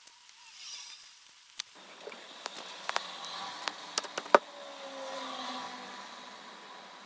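Handling noise from hands working at a craft table: a run of small sharp clicks and taps from about two seconds in, the loudest near the middle, over faint steady background noise.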